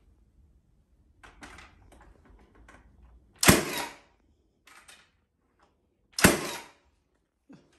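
A cordless nail gun firing twice, about three seconds apart, nailing a timber stud wall frame: each shot a sharp bang with a brief fading whir after it. Lighter clicks and knocks of handling the timber come in between.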